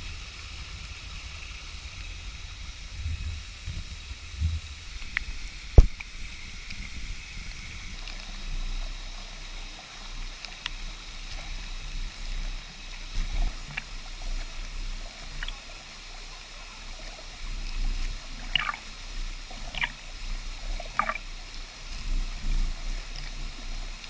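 Steady rushing of a tall waterfall pouring into a shallow pool, with occasional splashing in the water. A single sharp knock about six seconds in is the loudest moment.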